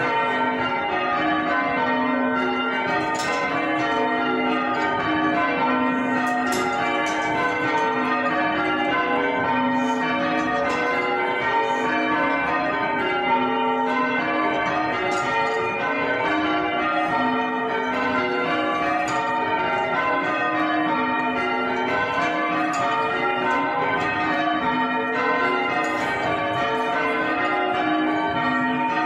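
A ring of six church bells rung full circle in English change ringing, the bells striking one after another in a steady, rapid, unbroken rhythm. Heard from the ringing chamber below the bells.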